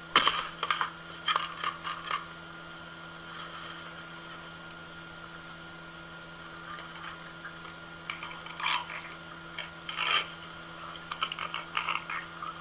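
A cat and a parrot at a plastic food bowl on a stone floor: two flurries of short clatters, scrapes and brief croaky sounds, one in the first two seconds and another from about eight seconds in. A steady electrical hum runs underneath.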